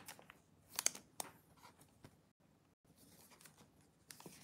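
Faint crinkling and rustling of trading cards and their pack wrapper being handled, a few short sharp crinkles with the strongest about a second in.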